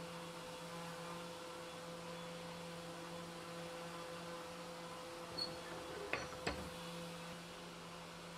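Steady low machine hum of a workshop, a fan-like drone with a faint tone over it. A few light knocks and taps come about two-thirds of the way through, from the wooden rifle stock being handled.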